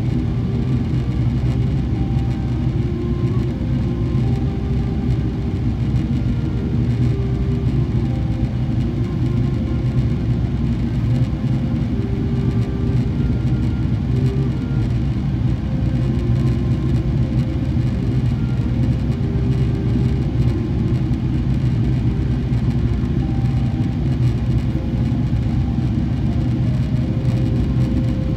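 Steady low rumble of cabin noise inside a Boeing 777-300ER airliner in flight: its GE90-115B turbofan engines and the airflow past the fuselage, even throughout.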